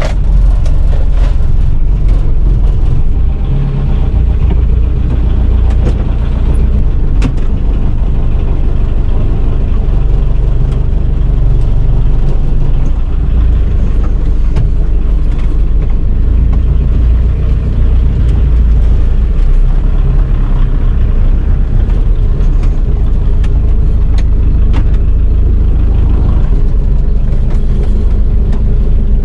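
Engine of a Volkswagen T3 van idling steadily just after a cold start, heard from inside the cab, with a few faint clicks.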